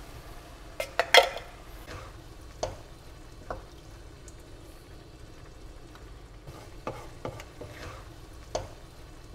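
Wooden spoon stirring diced tomatoes through chicken mince in a frying pan, with scattered knocks and scrapes against the pan over a low sizzle. The loudest cluster of knocks comes about a second in.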